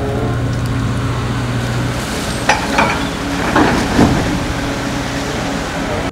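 Crawler crane's diesel engine running steadily under a hiss of water, with a few sharp knocks and a splash between about two and a half and four seconds in as its clamshell grab bucket drops into the water.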